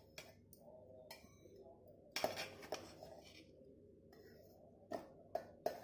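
Spoon and dried dates clinking and knocking against a stainless steel mixer-grinder jar as the jar is loaded, a few separate sharp knocks, the loudest about two seconds in.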